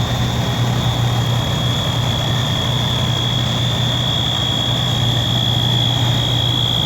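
Building fire alarm sounding one continuous high-pitched tone, a little louder near the end, over the steady idle of fire engines' diesel engines.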